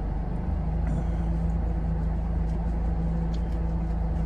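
Steady low rumble with a constant hum, like a motor vehicle engine running at idle, with a few faint light ticks over it.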